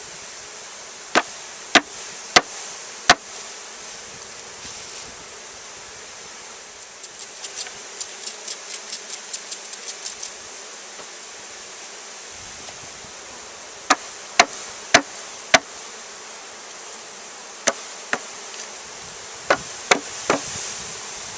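Honeybees buzzing steadily around a newly built top bar hive. Sharp knocks cut through in groups: four in the first few seconds, a quick run of lighter taps midway, then groups of four, two and three knocks in the last half.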